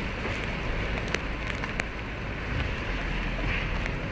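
Steady rushing wind-and-rain noise heard from inside a moving car, with a few sharp ticks like drops or grit striking the glass.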